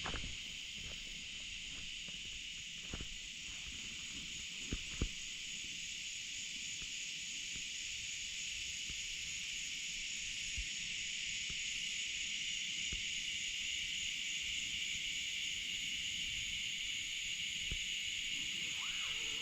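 Cicadas buzzing in a steady, high-pitched chorus, with a couple of faint knocks about five seconds in.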